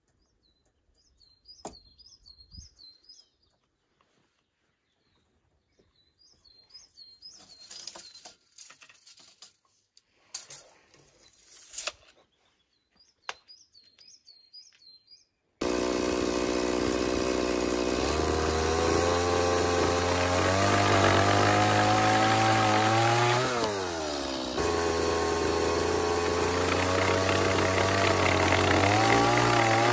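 A small songbird singing three short phrases of quick, repeated down-slurred notes, with a few light knocks between them. About halfway through, a chainsaw cuts in abruptly and runs loud and steady. Its pitch sags briefly once near the end, then picks back up.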